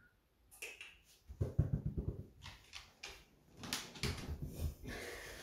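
A beagle moving fast over a hardwood floor, its claws clicking and scrabbling on the boards, with a few heavier thumps as it jumps up onto a sofa.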